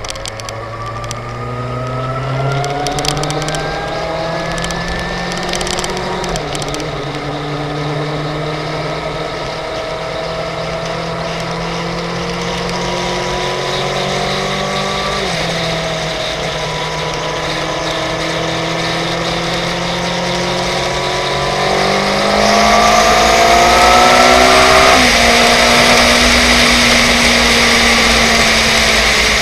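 Suzuki GSX-R750 K5 inline-four engine pulling under load, its pitch climbing steadily and dropping sharply three times as it changes up through the gears. Wind rush grows louder near the end as speed rises.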